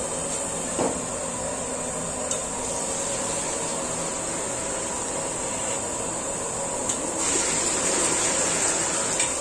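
Water poured from an aluminium vessel onto raw meat pieces in a large aluminium pot, a steady splashing gush that gets louder from about seven seconds in. A light knock sounds about a second in.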